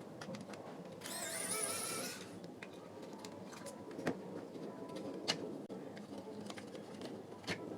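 A small electric motor whirs for about a second, then several light sharp clicks and taps as parts are handled during disassembly.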